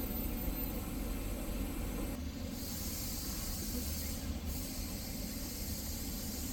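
Street ambience: a steady traffic rumble, with a brighter hiss joining about two seconds in.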